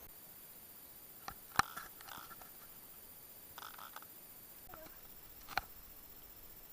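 A few sharp clicks or knocks, the loudest about one and a half seconds in, with short soft rustles between them, over a faint steady hiss.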